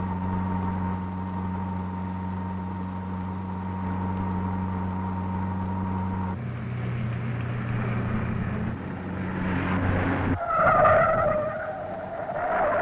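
Cartoon car-chase sound effects: a steady car engine drone whose note changes about six seconds in, then tires screeching loudly from about ten seconds in as the car corners.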